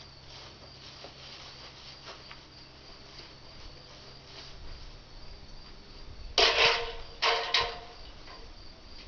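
Crickets chirping steadily in the background. About two-thirds of the way in come three loud, rough noises, one longer and then two short ones close together.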